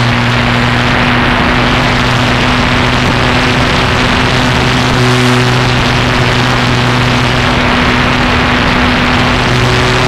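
Small propeller aircraft's engine running at a steady pitch in flight, with a steady rush of wind over the camera.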